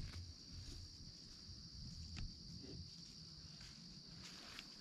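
Faint, steady, high-pitched chorus of insects such as crickets, with a few faint ticks, one about two seconds in.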